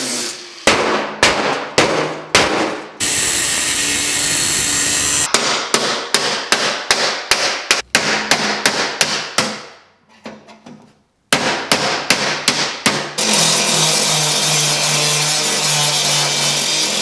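Angle grinder grinding and cutting sheet steel, alternating with runs of rapid hammer blows driving a chisel against the steel to knock off welded pieces. The grinder runs steadily through the last few seconds, grinding the welds flush.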